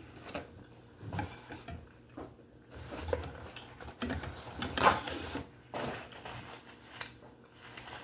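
Close-up eating sounds of a person chewing steamed conch, with irregular mouth sounds and light clinks and scrapes of dishes and cutlery.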